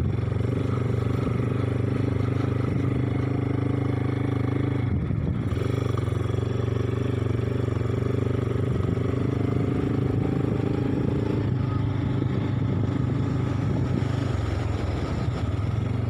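ATV engine running steadily at an even pace, with a brief dip about five seconds in.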